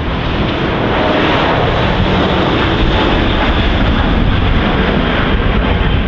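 Airbus A380-800 lifting off and climbing out at take-off thrust: the four jet engines make a loud, steady rumbling noise.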